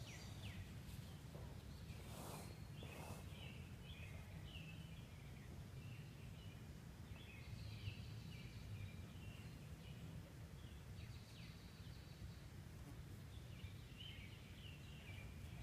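Songbirds chirping and singing in short repeated phrases over a steady low background rumble, with two brief swishes about two and three seconds in.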